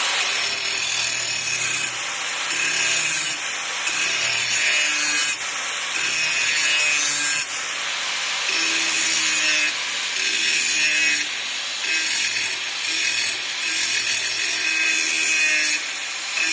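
Angle grinder with an abrasive pad grinding the cutting edge of a steel lawnmower blade to sharpen it. The grinding rises and eases in repeated passes, roughly every one to two seconds, as the pad is worked along the edge.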